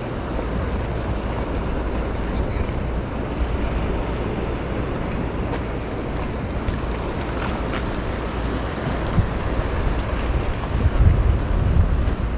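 Wind buffeting the microphone in a steady low rumble, over the wash of sea water lapping.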